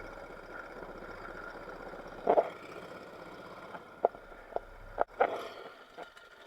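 Marsh water sloshing and splashing as someone moves through it, with a louder splash about two seconds in and a few shorter ones later, over a steady hiss of background noise.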